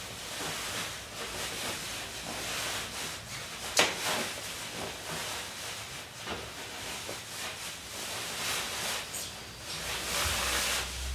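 Upholstery fabric and foam rubbing and rustling as a foam cushion is pushed and smoothed into its cover, with a sharp knock about four seconds in. A low steady hum starts near the end.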